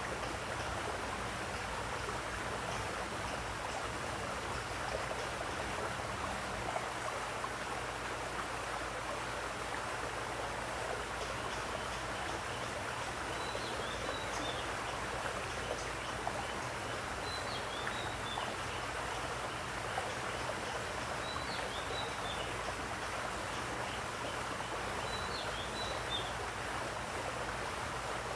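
Steady flowing water, with a bird's short high chirping phrase repeated four times, about every four seconds, in the second half.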